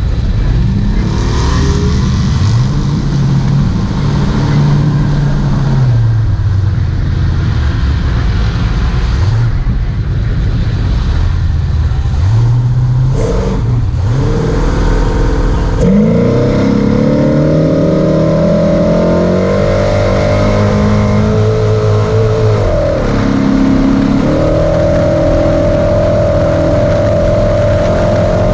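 Ford Ranger desert race truck's engine under hard driving, its pitch rising and falling with each throttle change and gear shift over constant rough road and wind noise. In the second half it revs up and holds high, dropping once briefly before climbing back.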